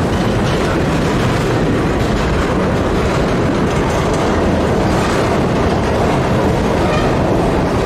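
Mixed manifest freight train rolling past, a loud, steady rumble of its wheels on the rails.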